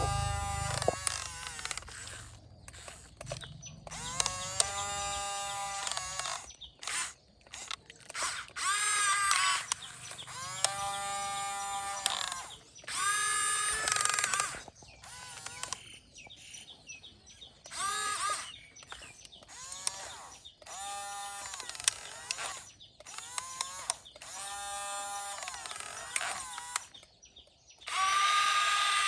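Small electric motors of a Yigong RC excavator whining in repeated bursts of about one to two seconds. Each burst spins up and winds down in pitch, with short pauses between.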